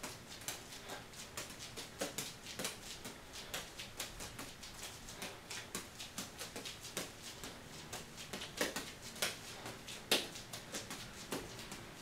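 Three juggling balls slapping into the hands as they are caught and thrown, a quick uneven patter of soft smacks several times a second, the loudest one about ten seconds in.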